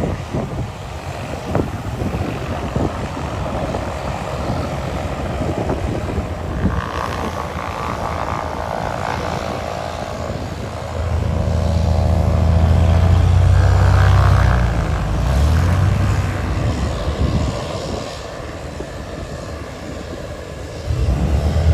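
Small propeller airplane arriving: its engine and propeller drone grows in, gets loudest about halfway through with a shift in pitch, then fades. Wind buffets the microphone throughout.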